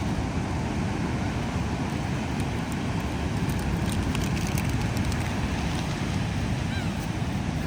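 Wind buffeting the microphone over the steady rush of sea surf on the shore, with a few faint clicks midway.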